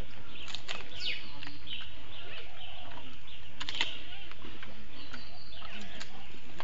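Giant panda chewing bamboo, with a few sharp crunches and snaps of the stalks, while birds chirp in the background.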